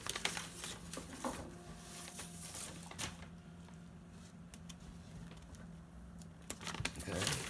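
Large paper sheet rustling and crinkling as it is unrolled and held up, in scattered short rustles that are busiest in the first second and a half and again near the end, quieter in between.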